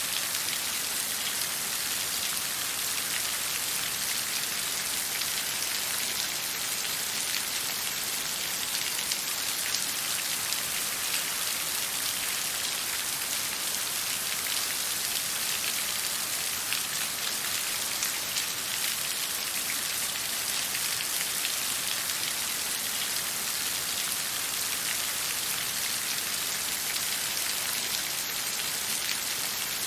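Steady hiss of falling water with a dense, fine patter of drops, even and unchanging throughout.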